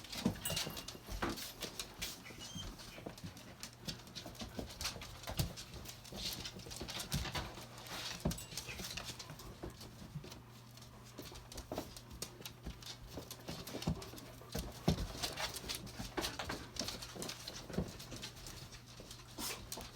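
A dog moving about, its steps making irregular clicks and taps, over a faint steady low hum.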